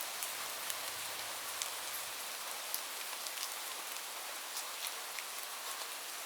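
Steady rain: a dense, even hiss with scattered sharp ticks of individual drops striking a surface.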